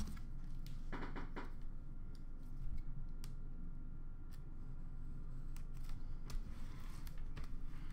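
Hands opening a sealed cardboard trading-card box: a short rustling scrape about a second in as the seal gives, then scattered light clicks and crinkles of fingers working along the lid edge, over a steady low room hum.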